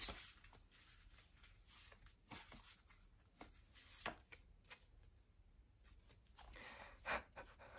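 A deck of Yu-Gi-Oh cards being shuffled by hand: faint, irregular soft clicks and rustles of cards sliding against one another.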